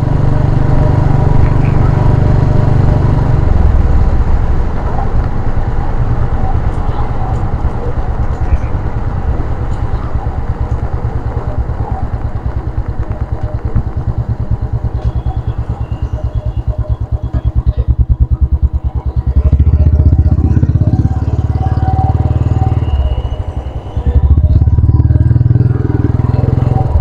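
Royal Enfield Classic 350's single-cylinder engine running under way, an even rapid pulse at a steady cruise. It gets louder about two-thirds of the way through, dips briefly shortly before the end, then picks up again.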